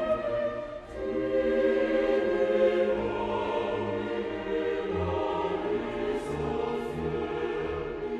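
Background music: sustained choral voices over orchestra, with the chords changing every couple of seconds.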